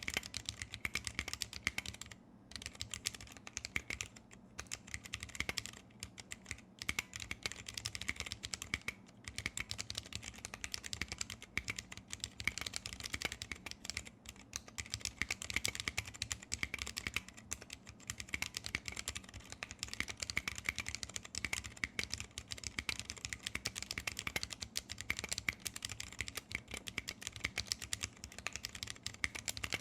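Continuous fast typing on a 60% custom mechanical keyboard with vintage brown Alps switches lubed with PTFE, on a brass plate with PBT keycaps: a steady stream of sharp key clicks with a few short pauses.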